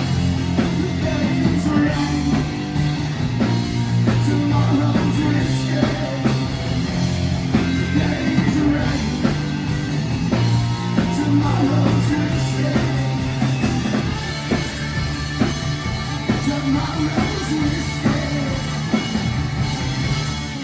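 Live rock band playing: two distorted electric guitars, electric bass and drum kit, loud and dense.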